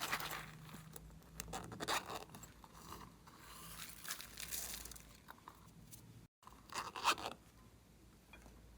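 Glossy slime being squished, stretched and kneaded by hand, giving sticky crackling and popping in several bursts.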